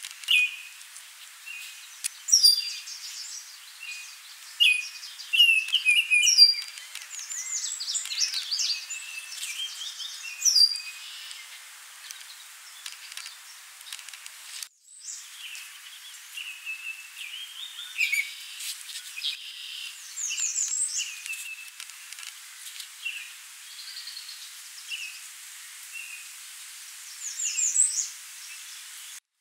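Several songbirds calling and singing: short chirps and quick warbled phrases, some in rapid series of high notes. The sound breaks off completely for a moment about halfway.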